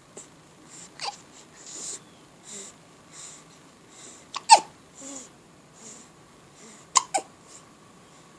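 A baby hiccupping: five sharp hiccups, one about a second in and then two quick pairs, with soft breaths between them.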